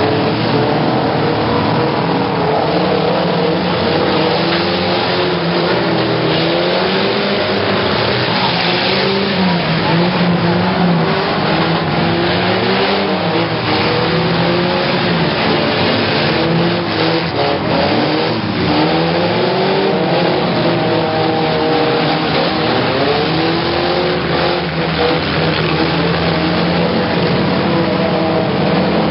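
Several pickup truck engines revving hard and falling back in a demolition derby, their pitches rising and falling over one another, with a few knocks of trucks colliding around the middle.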